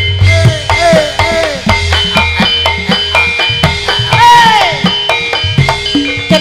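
Javanese gamelan playing live for a tayub dance: a quick run of kendang drum strokes over the steady ringing of gongs and metallophones.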